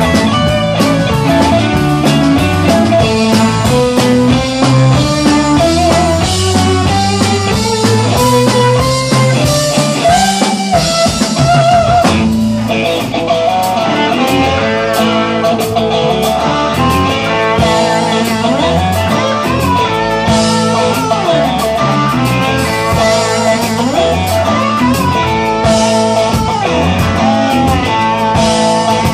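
Electric guitar instrumental: a Stratocaster-style electric guitar played through an amp, running a melodic lead line with bent and sliding notes over a fuller rock accompaniment.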